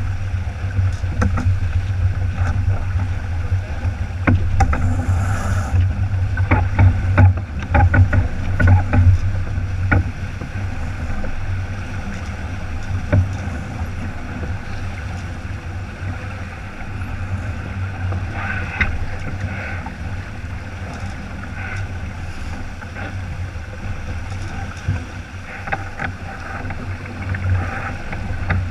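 Wind buffeting the microphone over water rushing and hissing along the hull of a sailboat moving fast under sail, with scattered knocks and splashes, busiest in the first ten seconds.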